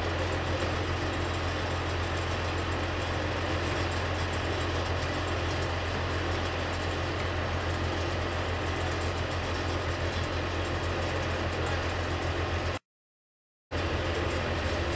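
Heavy diesel engine of the on-site equipment running steadily with a deep, even hum. The sound cuts out completely for about a second near the end, then comes back unchanged.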